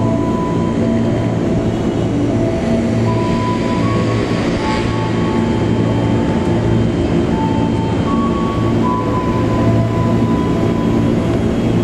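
KAI diesel-electric locomotive running steadily as it hauls a passenger train slowly around a curve into the station, its engine a continuous low drone.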